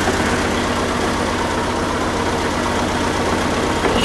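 Oliver 770 industrial tractor's six-cylinder diesel engine running steadily at low speed.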